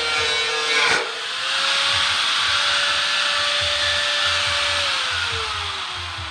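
Electric angle grinder cutting a metal rectangular tube, its motor whining steadily. About a second in there is a sharp knock, after which the whine runs slightly higher. Near the end the whine falls steadily as the grinder is switched off and spins down.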